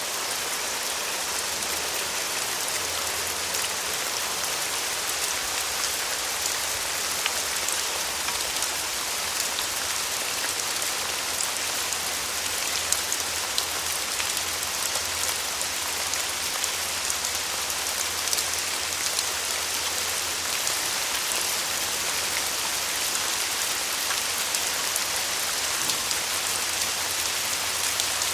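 Steady rain falling, an even hiss with many fine drop patters, and a faint low rumble underneath.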